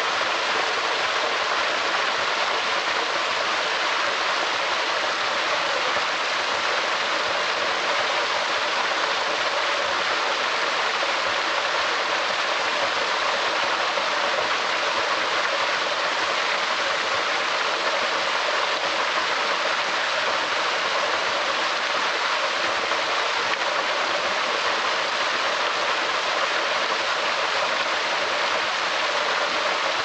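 Small woodland waterfall splashing over rocks into a shallow pool: a steady, even rush of falling water.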